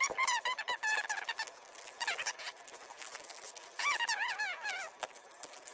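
Foil booster-pack wrapper crinkling as it is handled and torn open, with high, wavering squeaks over it at the start and again about four seconds in.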